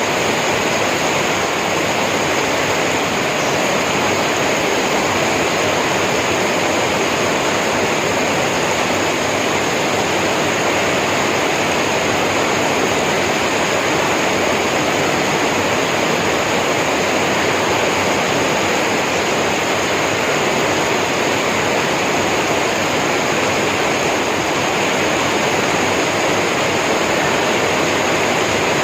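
Heavy rain pouring down steadily in a loud, even hiss.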